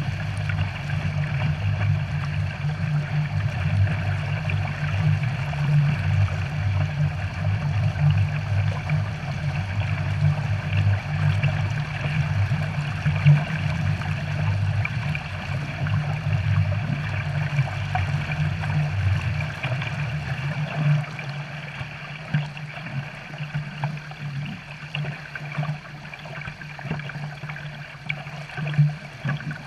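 Water churning and splashing in a pontoon boat's wake, over a low rumble that drops away about two-thirds of the way through.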